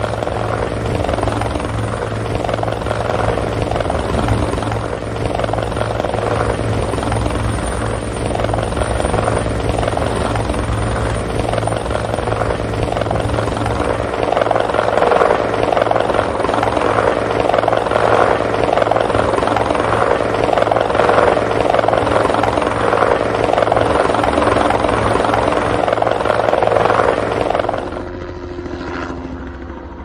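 Helicopter flying: steady rotor chop over a low engine drone, getting louder about halfway through, then dropping off sharply near the end.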